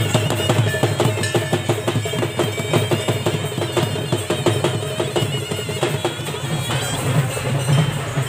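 A group of folk drummers beating hand-held drums in a fast, steady, dense rhythm.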